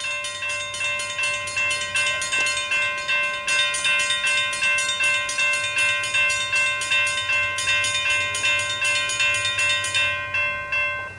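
Railroad grade crossing bells ringing rapidly, about three strikes a second, while the crossing gates come down. The strikes stop about ten seconds in, once the gates are down, and the ringing tone dies away.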